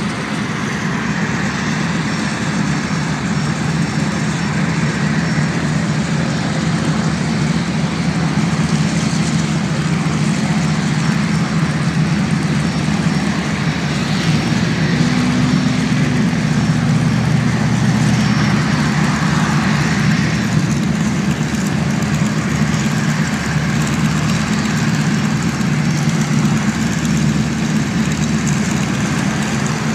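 Radial piston engines of taxiing warbirds, a de Havilland Caribou transport and T-6 Texan trainers, running in a steady low drone.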